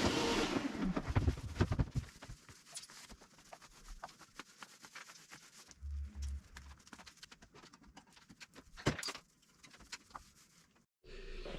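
Scattered light clicks and taps, irregular and fairly quiet, with a sharper knock about nine seconds in. A steady rushing noise fades out in the first second or two.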